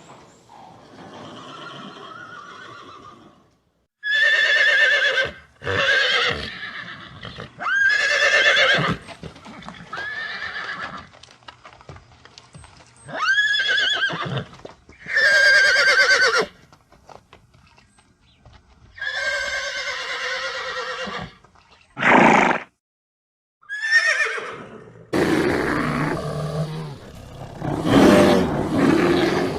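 Horse neighing and whinnying, about ten separate calls of a second or two each with short gaps between. A longer, rougher, noisier call fills the last few seconds.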